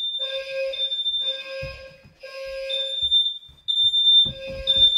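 Fire alarm system in alarm after a smoke detector test: a Gentex low-frequency sounder's low buzzing tone and a shrill high-pitched alarm tone pulse on and off, taking turns.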